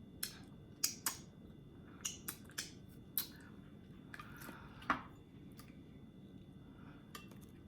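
Close-up eating sounds: scattered sharp, wet mouth clicks and smacks while chewing oxtail, spaced irregularly.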